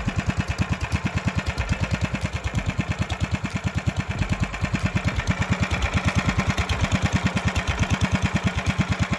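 Predator 301 cc single-cylinder four-stroke engine idling steadily with even pulses and no revving.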